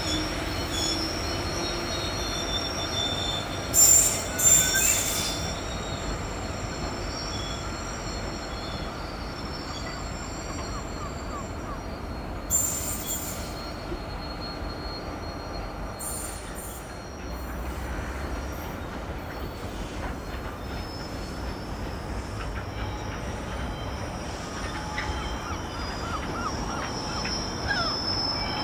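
Freight wagons rolling along the track with their wheels squealing steadily and high-pitched, with short, louder screeches about four seconds in and again around twelve seconds.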